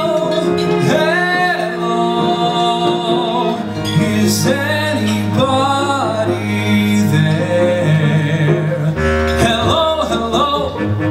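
Live band music from a show tune, with a steady bass line under a melody that slides between notes, and some singing without clear words.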